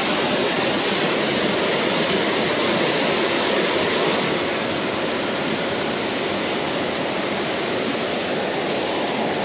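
A 30-foot waterfall pouring into the pool below: a steady, even rush of falling water.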